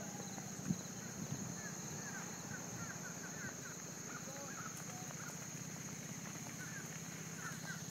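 Cattle hooves clopping on highway asphalt as the herd crosses, with a sharp knock about a second in, and birds chirping throughout.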